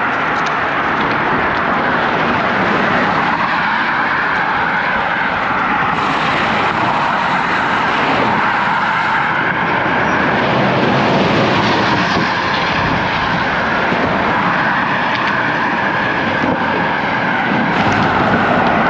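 Steady rushing wind and road noise picked up by a bike-mounted camera while riding a road bicycle at speed, with highway traffic mixed in.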